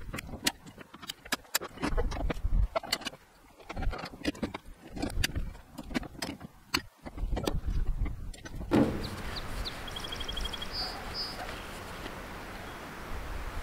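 Irregular metal clicks and knocks as a hammer and hand tools work on a brush hog's PTO driveline yoke. About nine seconds in, these give way to a steady outdoor hiss with a few short high chirps.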